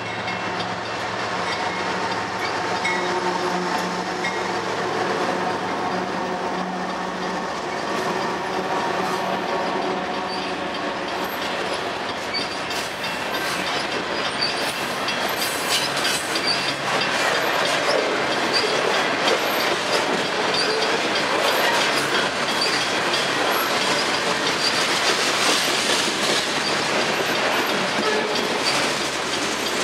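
Union Pacific diesel locomotives of a freight train running close by with a steady engine drone for the first several seconds. Then a long string of covered hopper cars rolls past with a dense rumble, clickety-clack over the rail joints and short high wheel squeals.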